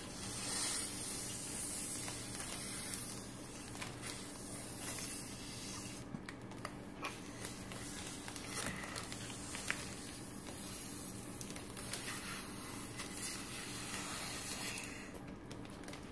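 Air being sucked out of a zip-top plastic bag through a drinking straw by mouth: a hiss that swells and fades over several long draws, with light crinkling of the plastic. A steady low hum runs underneath.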